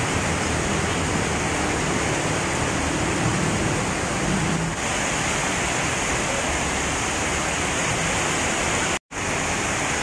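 Heavy rain pouring steadily, a dense even hiss, with a low rumble of trucks moving on the wet road underneath. The sound cuts out for a split second about nine seconds in.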